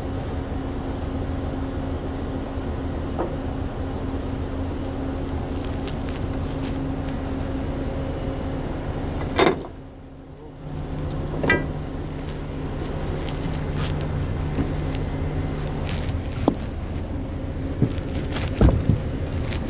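An engine running steadily with a low hum. It drops away for about a second halfway through and then comes back. A few sharp metal knocks and clicks sound over it.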